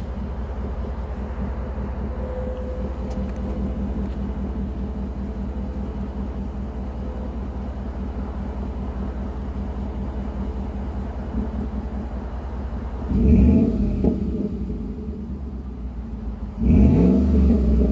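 2012 Ford F-150's 5.0 L Coyote V8 idling through a Flowmaster 40 Series muffler and side-exit exhaust with a steady rumble, then revved twice. The first quick rev comes about thirteen seconds in and falls back to idle; the second comes near the end.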